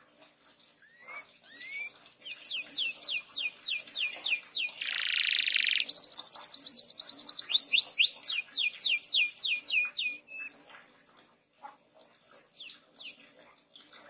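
Domestic canary singing: a run of quick, descending whistled notes, several a second, broken about five seconds in by a short harsh buzz and then a very fast rolling trill. The run ends a little after ten seconds with a couple of brief high notes, and a few more descending notes come near the end.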